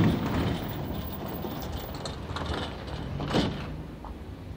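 A train rumbling past on the track, with a short, sharp clank about three and a half seconds in.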